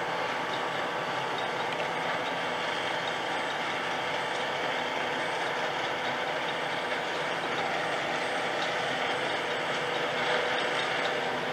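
New Holland T7.210 tractor and trailed Grimme SE 150-60 potato harvester running steadily while lifting potatoes, a constant mechanical din of engine and harvester.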